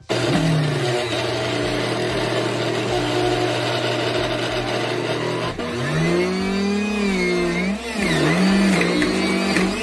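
Mueller centrifugal juicer switched on, its motor starting abruptly and running with a steady hum. About five and a half seconds in, the pitch drops and wavers up and down as the motor labours under produce being pushed down the feed chute.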